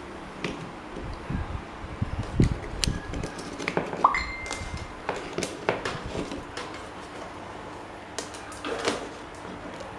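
Irregular clicks and knocks of metal parts and hand tools being handled on a workbench, with one short metallic ping ringing about four seconds in.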